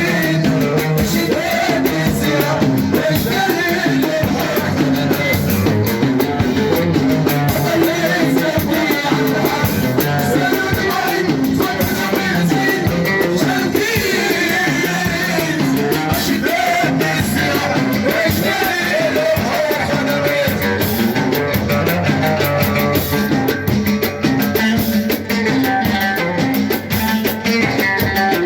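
Live Moroccan chaabi wedding music: a singer over a band, with dense, steady hand-drum percussion.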